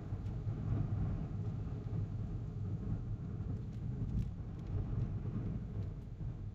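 Steady low rumble of wind buffeting the microphone on a moving motorcycle, with a few faint ticks above it.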